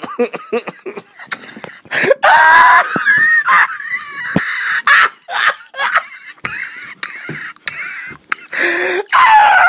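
Loud, high-pitched wheezing laughter in long squealing bursts, starting about two seconds in after a few short chopped-up fragments, with another loud burst near the end.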